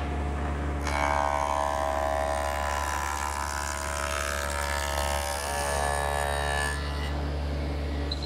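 Table saw running with a steady motor hum. From about a second in it cuts a rabbet along a pine drawer front, and the cutting adds a louder, whining note for about six seconds. After the cut it drops back to the saw idling.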